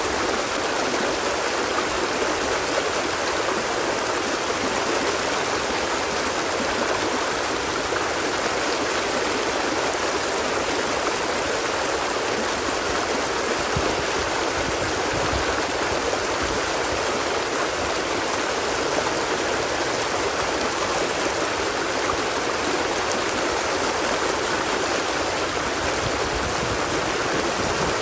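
Flowing water, running steadily and evenly without pause.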